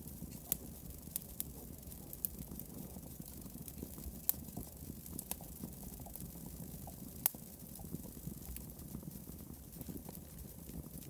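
Experimental electronic music played live on small electronic instruments: a low, noisy, churning texture with irregular sharp clicks and crackles scattered over it.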